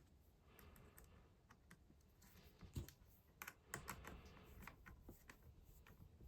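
Faint, irregular clicks and taps of small RC kit parts being handled during assembly, with a few sharper clicks in the second half.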